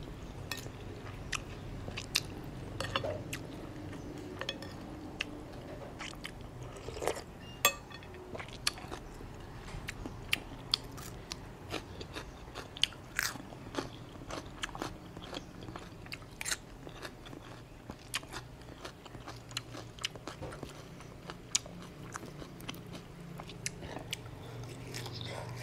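Close-miked eating: biting, chewing and crunching, with frequent short sharp clicks, over a faint steady low hum.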